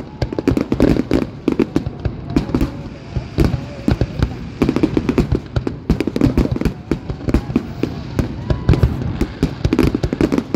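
Fireworks display: a continuous barrage of aerial shell bursts and crackling, many sharp reports a second over a low rumble.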